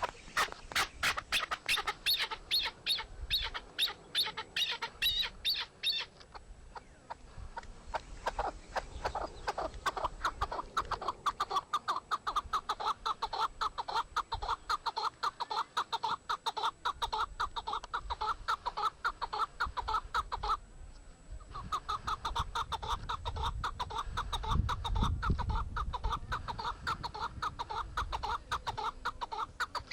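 Rapid, regular series of animal calls, several short notes a second, with two brief breaks, about 6 s in and about 21 s in.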